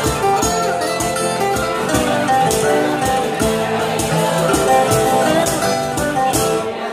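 Live instrumental music: an acoustic guitar strummed in a steady rhythm, with other sustained notes sounding with it.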